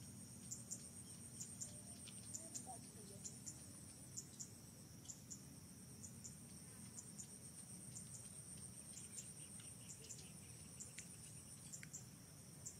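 Insects calling in the surrounding vegetation: a steady high trill runs throughout, with a short double chirp repeating about once a second, faint overall.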